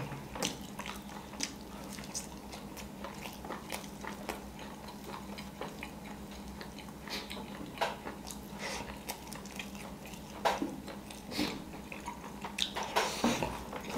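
Close-miked eating sounds: chewing and mouth smacks, with scattered short clicks as chicken and rice are handled and eaten with the fingers. A faint steady hum runs underneath.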